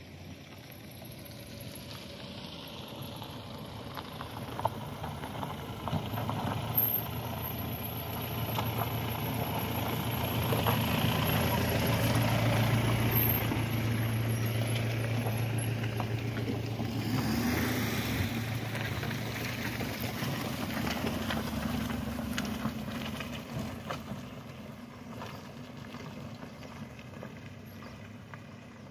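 A small car's engine running as it drives slowly along a muddy road, growing louder as it comes near, loudest around the middle, then fading away. A couple of sharp knocks sound before it nears.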